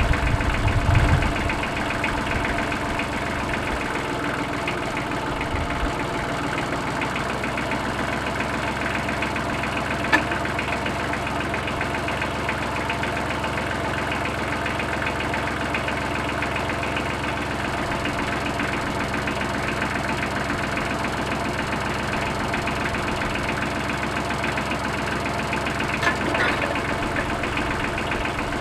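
Tractor engine running steadily at a constant speed, with a brief low surge about a second in and a sharp click and a short knock later on.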